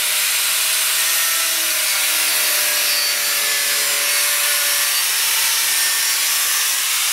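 Angle grinder grinding the steel frame of a Honda CB750: a steady, hissing grind over a faint motor whine that drifts a little in pitch.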